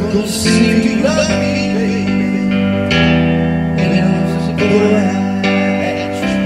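Electric keyboard played with a piano sound: struck chords that ring on and change about once a second, with a voice singing along in places.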